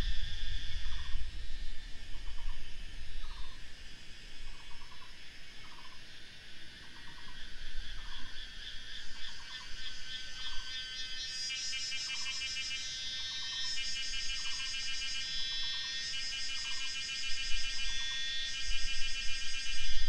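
Insects singing in a steady, pulsing high chorus, joined about halfway through by a louder layer that switches on and off every second or two. Underneath, a repeated two-part animal call sounds about once a second: a short falling note, then a brief trill. A low rumble comes near the start and again at the end.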